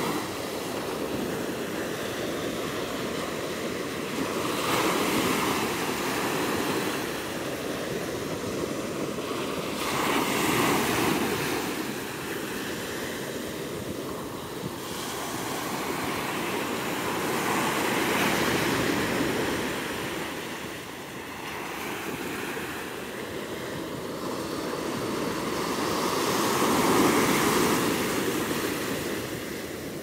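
Ocean surf: small waves breaking on a sandy beach and washing up the sand. The rushing noise swells and eases with each wave, peaking several seconds apart.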